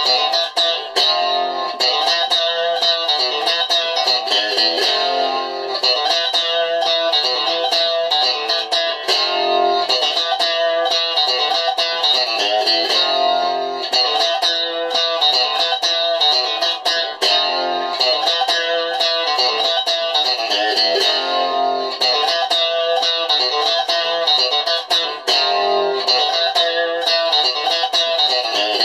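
Stratocaster-type electric guitar on its bridge pickup, picked with the fingernails and played through a VOX Mini3 amp on its UK '70s model at gain 5. It plays a continuous run of picked notes with no pauses.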